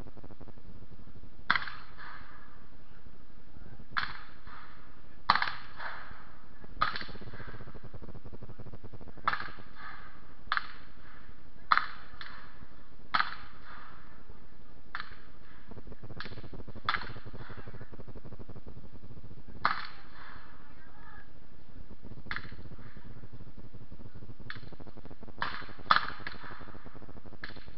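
Scattered shots from a line of Civil War–style black-powder firearms: about twenty sharp cracks at irregular intervals, some in quick pairs, each with a short echo, over a steady hiss.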